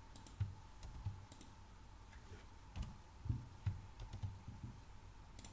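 Computer keyboard typing: about a dozen short key taps at an uneven pace, with a pause in the middle and a quicker run of keystrokes in the second half.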